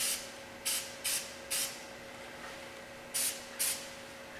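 Rust-Oleum Hard Hat semi-gloss black aerosol spray can hissing in six short bursts. There are four quick bursts, a pause of about a second and a half, then two more. The paint is going on in light bursts so it doesn't run.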